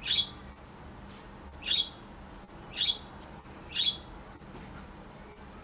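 A bird chirping four times, roughly a second apart, each chirp short and sharp, over a faint steady hum.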